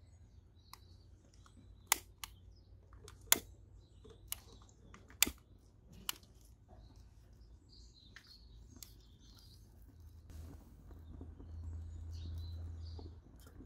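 Long-nosed gas utility lighter clicked repeatedly, about six sharp clicks over the first six seconds as its igniter sparks to light it. Faint birds chirping, and a low rumble near the end.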